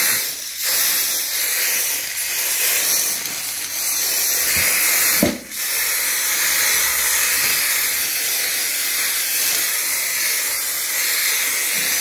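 Aerosol spray-paint can hissing as paint is sprayed onto cut MDF pieces, with a brief pause and a faint knock about five seconds in before spraying resumes.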